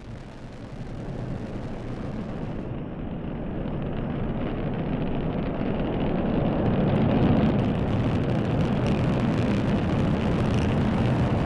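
Delta IV Heavy rocket's three RS-68 engines rumbling steadily as it climbs after liftoff, growing louder throughout.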